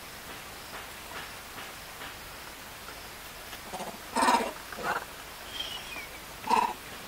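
Vervet monkeys giving three short calls about four, five and six and a half seconds in, over a steady hiss, with a faint falling chirp near the end.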